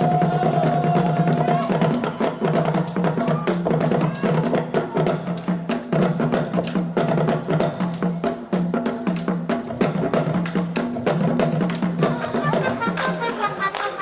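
Brass band playing a piece with percussion: a fast, steady beat of drum strokes over low sustained bass notes. Near the end the low notes stop.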